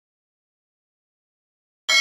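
Dead silence, then near the end a sudden bright bell-like ding with several ringing tones: the chime of a subscribe-button animation sound effect.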